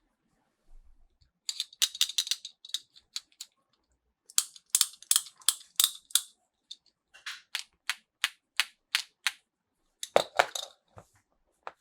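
Small plastic toy packaging and pieces being handled during an unboxing: runs of quick, crisp clicks and crackles, then a heavier knock about ten seconds in.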